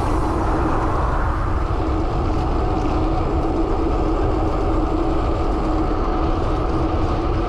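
Steady rush of wind on the microphone and tyre hum on asphalt from a road bike moving at speed, with a constant low hum underneath.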